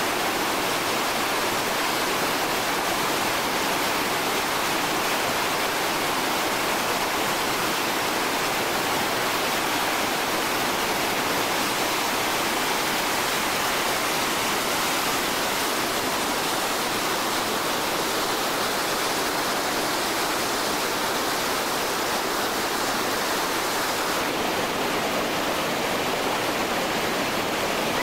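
Heavy whitewater rapids rushing over and around boulders: a steady, unbroken roar of water.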